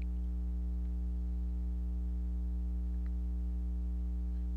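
Steady electrical mains hum, a low buzz with a stack of overtones, with a couple of faint ticks.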